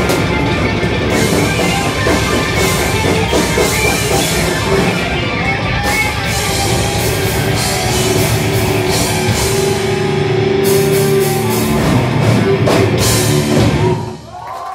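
Thrash metal band playing live, with distorted electric guitars, bass and drum kit, loud and dense. The band stops abruptly near the end.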